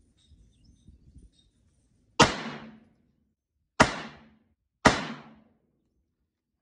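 Three rifle shots from a .223 AR-style rifle: the first about two seconds in, the next about a second and a half later, the last about a second after that. Each shot cracks sharply and trails off in a short echo.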